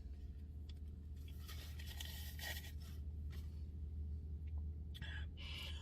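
A spoon scraping faintly in a Frosty cup, with quiet eating sounds, twice in short stretches, over a steady low hum.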